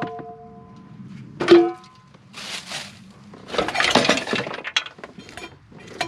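Pieces of scrap metal clanking and ringing as they are handled and tossed together: a ringing clank at the start that dies away after about a second, a second sharp clank about a second and a half in, then rattling and scraping of junk being shifted.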